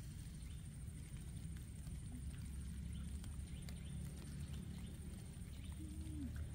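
Outdoor ambience: a steady, high, finely pulsing insect trill over a low rumble, with faint scattered clicks.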